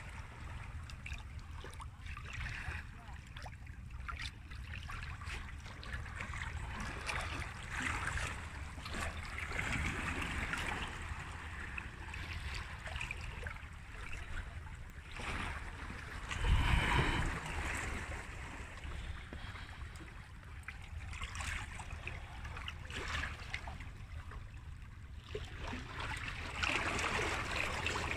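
Small sea waves lapping and washing against shoreline rocks, swelling and fading every few seconds, with wind rumbling low on the microphone. One louder wash comes about seventeen seconds in.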